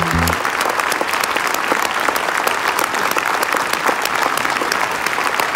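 Concert audience applauding, a dense, steady clapping, as the band's final held chord stops just after it begins.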